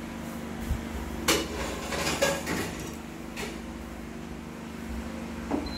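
Knocks and clatter from a phone camera being handled and repositioned: a cluster of sharp knocks in the middle, another a second later and one near the end, over a steady low hum.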